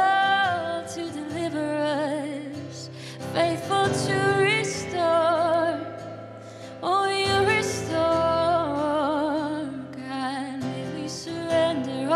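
A woman singing a slow worship song, with long held notes and vibrato, accompanied by her own strummed acoustic guitar.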